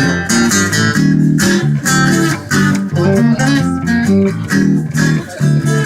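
A band playing an instrumental passage without vocals, led by guitar: quick picked notes and strummed chords over a moving bass line.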